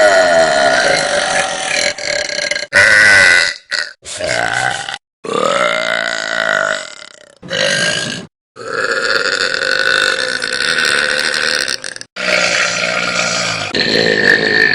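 Young women burping loudly, one long belch after another, about eight in all. Each is a drawn-out, pitched burp that stops abruptly at a hard cut; the longest runs for about three and a half seconds.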